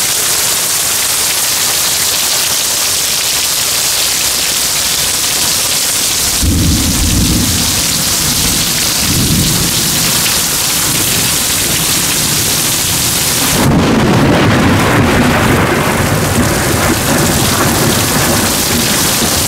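Heavy rain pouring steadily in a thunderstorm. Thunder rumbles in about a third of the way through, and a louder peal breaks about two-thirds through and rolls on almost to the end.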